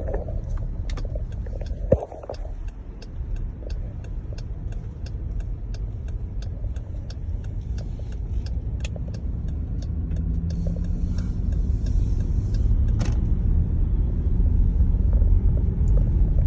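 Low road and drivetrain rumble inside the cabin of a 2019 Jeep Grand Cherokee driving on snowy roads, growing louder toward the end. A light, regular ticking runs about two or three times a second through the first part, and a brief hiss comes about two-thirds of the way in.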